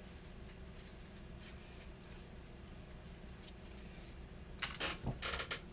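Faint handling noises, then a quick run of short rubbing and scraping sounds about a second before the end as an alcohol-dampened rag wipes the Dremel's filed motor contacts.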